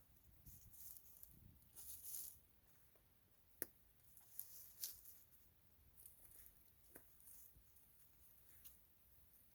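Faint, scattered rustling with a few sharp taps: chickens scratching and pecking for grubs in the garden soil and litter.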